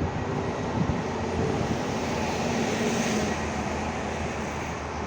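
Passenger train running past, a steady rumble and rattle of wheels on the rails with faint steady tones underneath.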